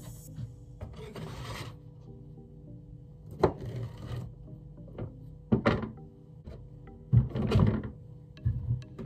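Kitchen knife slicing through a row of hot-dog sausages on a cutting board, several separate cuts, each a short scrape ending in a knock of the blade on the board.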